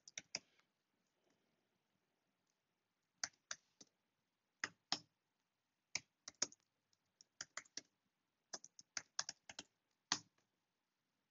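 Typing on a computer keyboard: short runs of keystroke clicks separated by pauses, with a silent gap of a few seconds near the start before the typing resumes.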